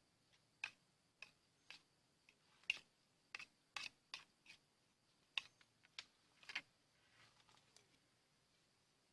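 Faint, sharp clicks and ticks at irregular intervals, about fifteen of them, with nothing steady between.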